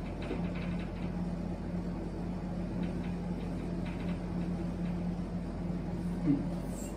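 Whiteboard marker writing, faint short strokes on the board, over a steady low hum in the room. A short low sound stands out about six seconds in.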